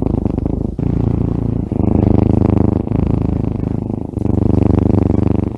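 Kitten purring loudly with a steady, fluttering rumble, in stretches of about a second with short breaks between, while its belly is stroked.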